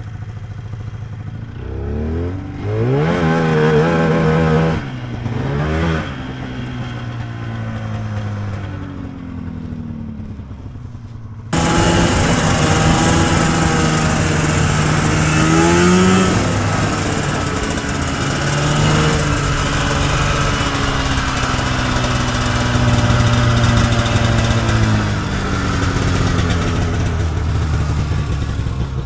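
Vintage Polaris two-stroke snowmobile engine revving up and dropping back in repeated bursts as the sled is worked out of a snow-filled ditch. About eleven seconds in it turns suddenly louder and keeps running hard with a rising and falling pitch as the sled rides along.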